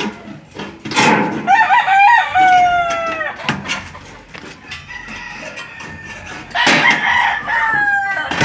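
A rooster crowing twice, about a second in and again near the end, each a long call that falls in pitch at its close. Between the crows come short sharp clicks of aviation snips cutting painted sheet-metal gutter.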